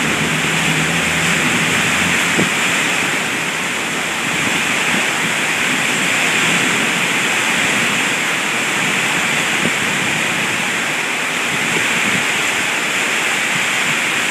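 Heavy thunderstorm rain pouring down steadily, a dense even hiss.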